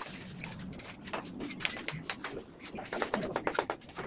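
Bricklaying: a steel trowel scraping mortar and knocking bricks into place on the wall, with a quick run of sharp taps a little after three seconds in.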